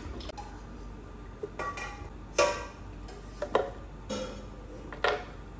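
Several sharp clinks and knocks of hard plastic and kitchen utensils as a Ninja blender's plastic jar is filled and handled, each with a brief ringing, the loudest about two and a half seconds in. The blender motor is not running.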